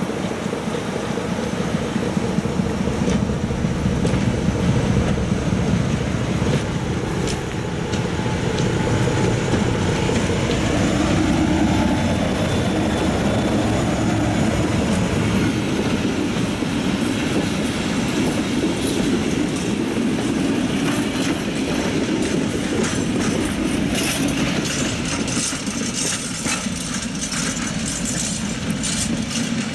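BB 63000-class diesel-electric shunting locomotive running as it hauls a short train past: a low engine rumble that builds as it approaches, is loudest as it goes by and slowly eases off. Near the end, wheels click over rail joints and points.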